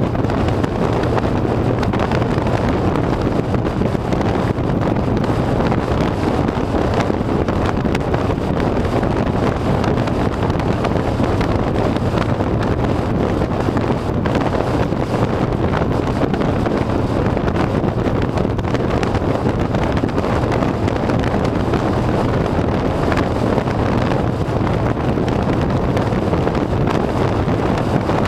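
Harley-Davidson V-twin motorcycle engine running at a steady cruising speed, with wind rushing hard over the microphone.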